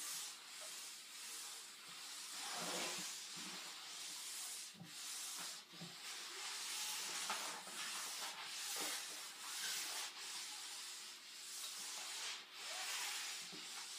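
Clothes iron sliding back and forth over the back of a damp vinyl backdrop: a rubbing, hissing noise that swells and fades with each stroke as the sprayed water dries under the iron.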